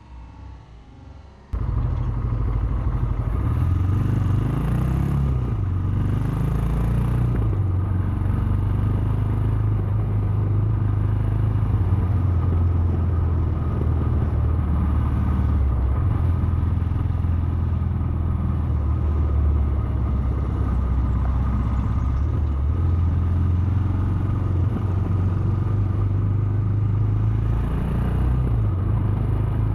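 Royal Enfield Himalayan's 411 cc single-cylinder engine running while the bike is ridden, its pitch rising and falling with the throttle. It cuts in abruptly about a second and a half in, after a quieter moment.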